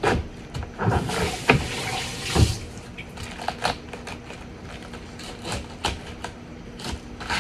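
Kitchen knife cutting through a large, dense head of cabbage on a plastic cutting board: crisp crunches of the leaves and sharp knocks of the blade on the board, with a hissing rush lasting about a second and a half about a second in.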